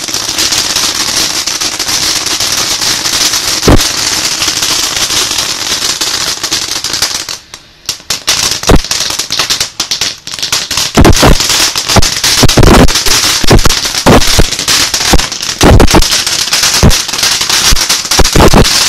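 Consumer aerial firework going off: about seven seconds of steady, loud hissing spray with a single crack partway through, then a rapid, irregular string of loud bangs and pops that runs to the end.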